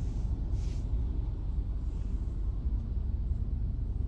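Steady low rumble inside a car's cabin while it sits in heavy traffic, with no clear change.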